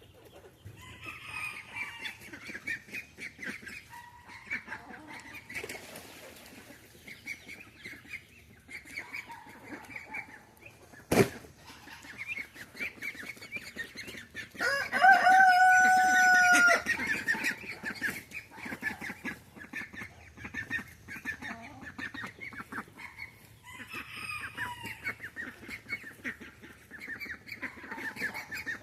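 Flock of chickens clucking and chattering throughout, with a rooster crowing once about halfway through, one long held call that is the loudest sound. A single sharp click or knock comes about a third of the way in.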